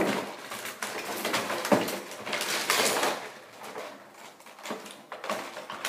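Small items from a dinosaur painting set (paint pots, toy dinosaur figures, brushes) clattering and knocking as they are taken out of the box, with packaging rustling about halfway through.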